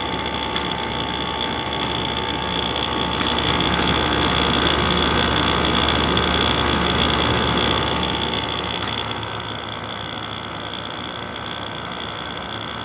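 2001 Sharp 5000 BTU window air conditioner running: its Rechi rotary compressor and fan make a steady hum with a constant whine, dropping a little in level about 9 seconds in. The compressor runs without any bad noise.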